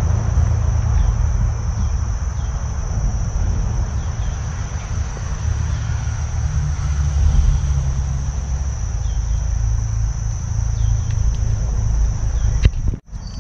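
Steady high insect drone over a constant low rumble, with a few faint short chirps; the sound cuts out abruptly for a moment near the end.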